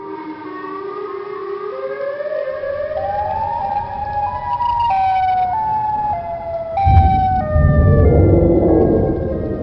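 Eerie, siren-like electronic tones climb upward in steps of held notes, then shift up and down. Beneath them a low rumble builds and swells heavily about seven seconds in.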